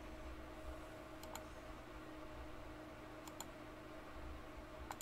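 Computer mouse clicking: three quick pairs of clicks about two seconds apart, over a faint low hum.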